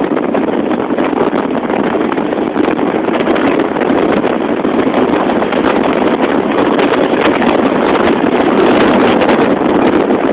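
Strong wind buffeting a phone's microphone: a loud, steady rushing noise with no distinct events.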